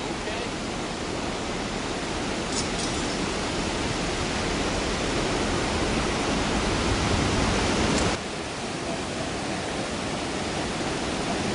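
Water pouring over a low dam spillway: a steady rushing, which drops suddenly in level about eight seconds in.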